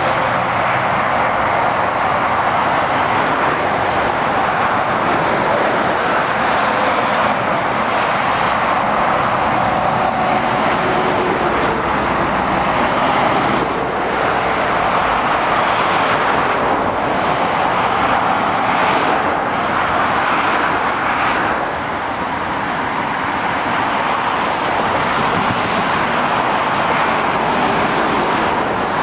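Motorway traffic: lorries and cars passing in a steady roar of tyres and engines, easing briefly a little past two-thirds of the way through.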